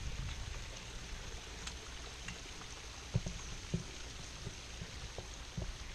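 Water running and splashing steadily from a rock waterfall feature into an ornamental pond. Two soft thumps come about three seconds in.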